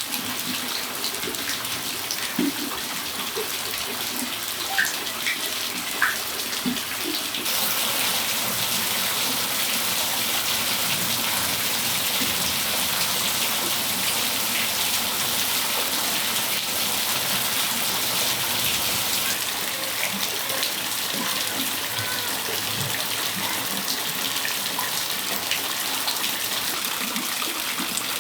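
Steady rain falling in a patio, a continuous hiss of water with a few sharp drips in the first several seconds. The rain grows suddenly louder about seven seconds in.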